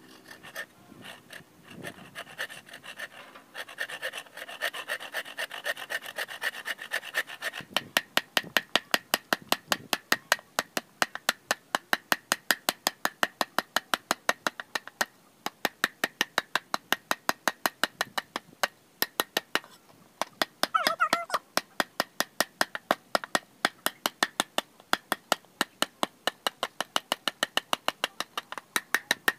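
A hand saw cutting through a bamboo pole with a continuous rasp for the first several seconds. Then a long knife blade is scraped along the bamboo in quick, regular strokes, about three a second, shaving it down. A brief voice-like sound cuts in about two-thirds of the way through.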